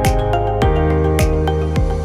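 Background music: sustained pitched notes over a steady electronic beat of deep kick drums, about two a second.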